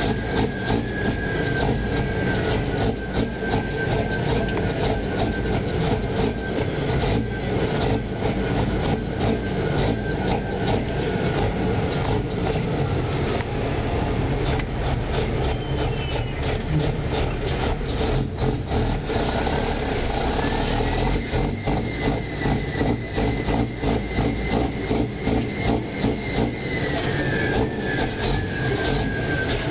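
Semi truck's diesel engine running steadily, heard from inside the cab, with a faint high whistle that drifts up and down in pitch.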